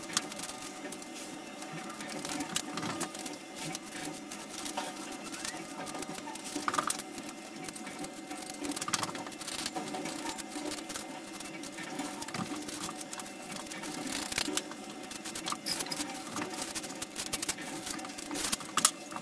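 Irregular small clicks, taps and scraping from hand work on a cast-iron stove top, as fire cement is pressed and smoothed around the base of the flue pipe, over a steady low hum.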